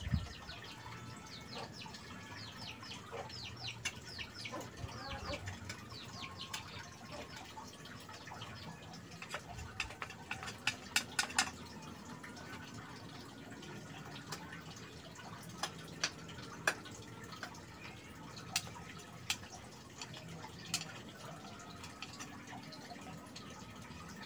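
Small knife scraping and shaving a teak-wood golok handle in short strokes, with scattered sharp clicks and taps of steel on wood; the loudest is a cluster of clicks about ten to eleven seconds in.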